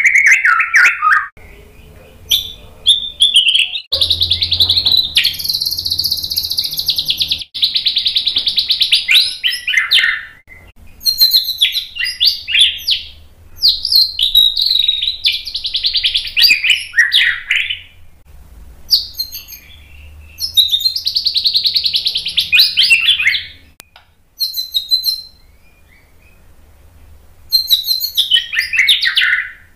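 White-rumped shama (murai batu) singing vigorously: a string of loud, varied whistled phrases and fast trills, broken by short pauses. It falls silent for a few seconds near the end, then starts again.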